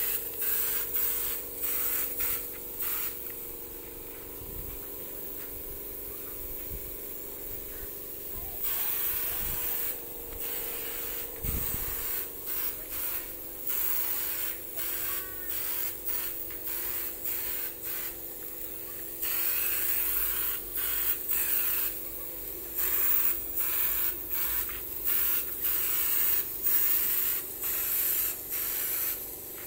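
Pneumatic hopper spray gun hissing as it sprays texture paint onto a speaker cabinet, in many short bursts with a couple of pauses of several seconds. A small air compressor hums steadily underneath.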